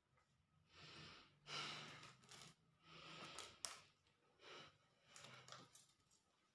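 A man breathing heavily in a series of sighs, about five faint breaths, with one short click a little past the middle.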